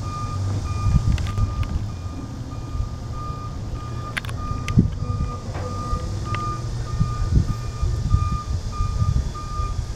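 Back-up alarm of a CSX hi-rail service truck beeping about twice a second, steady and evenly spaced, as the truck reverses along the rails, over the low rumble of its engine. A couple of sharp knocks come about one and four seconds in.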